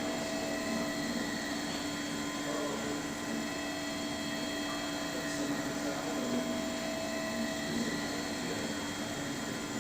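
Clay 3D printer running: a steady mechanical hum with several constant whining tones over a noisy hiss.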